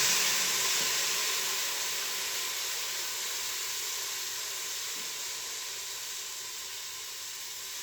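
Vegetable broth hitting the hot Instant Pot insert on sauté: sizzling and steam hissing that is loudest at first and slowly dies down.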